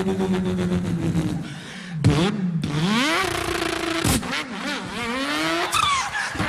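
A man's voice imitating a car engine: a steady, pulsing idle-like rumble that falls away about a second and a half in, then a string of rising and falling revs broken by short pauses, with a sharp high squeal near the end.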